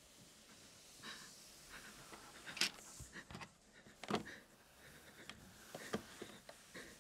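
Quiet, tense panting breaths heard close up, broken by three sharp clicks about a second and a half apart.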